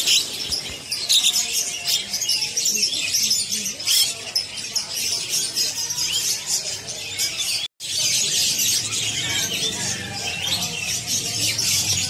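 Many caged songbirds chirping and twittering together in a dense, overlapping chorus of high calls, broken by a momentary gap about two-thirds of the way through.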